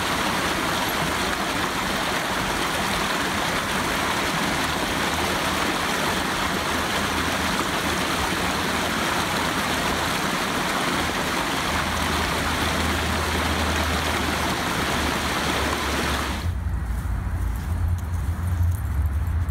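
Creek water rushing steadily over rocks and small cascades. About sixteen seconds in, it cuts off suddenly and gives way to a low rumble.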